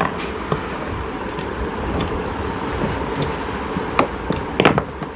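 Steady background traffic noise, with a few sharp clicks and knocks near the end.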